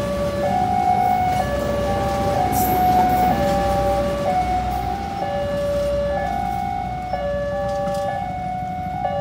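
Railway level-crossing warning alarm: an electronic two-note signal alternating between a lower and a higher tone about once a second, the sign that a train is approaching or passing. A steady low rumble runs underneath.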